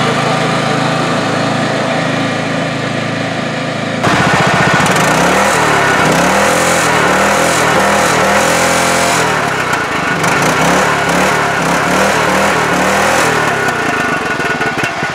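Small vehicle engine running: steady for about four seconds, then suddenly louder, with its pitch rising and falling as the engine revs and is driven.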